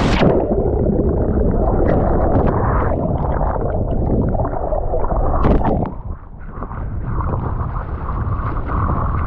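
Churning surf heard from underwater as a breaking wave rolls a sea kayak over: a muffled, low rumbling and gurgling of turbulent water and bubbles, with the hiss of the surf cut off sharply as the camera goes under. About six seconds in there is a brief splash and a short dip, then a steadier muffled rush of whitewater as the kayak comes back upright in the foam.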